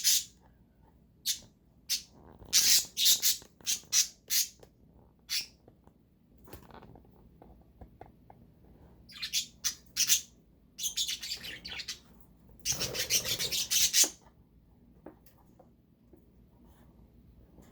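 Pet budgerigars chirping and squawking in a run of short, sharp calls, busiest around the middle, with a denser scratchy stretch near 13 seconds in.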